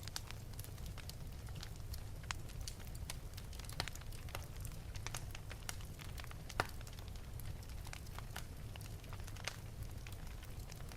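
Wood fire burning in an open fireplace: a steady low rumble under irregular crackles and pops, with a few sharper snaps, the loudest about two thirds of the way in.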